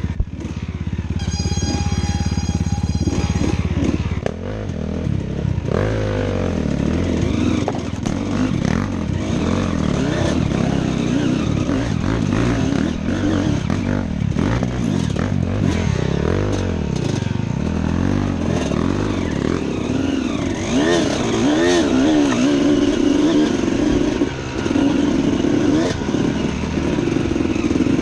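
Suzuki RM250 two-stroke dirt bike engine revving up and down over and over as the rider works the throttle, with scattered knocks from the bike over rough ground.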